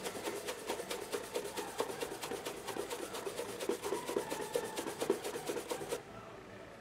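Horsehair shoe brush buffing dried wax polish on a leather shoe in rapid, brisk back-and-forth strokes, a steady scrubbing that stops about six seconds in. The friction of the bristles on the leather melts the wax and brings up the shine.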